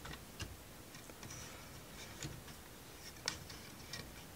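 Faint, scattered clicks and taps of wooden model-kit parts being handled and shifted on an axle, about five in all, the sharpest a little past three seconds in.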